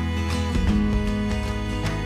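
Background music with a steady run of notes.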